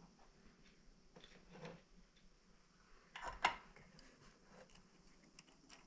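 Faint scattered clicks and light metallic taps from handling small objects, with a louder clatter of a few sharp clicks about three and a half seconds in.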